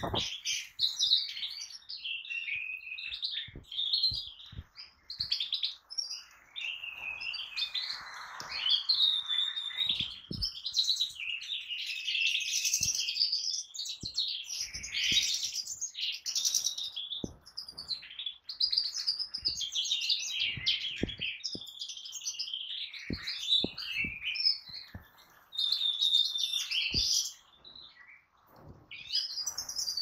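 European goldfinches singing: a continuous, fast tumble of twittering, chirps and short trills, with scattered sharp clicks among them and a brief pause near the end.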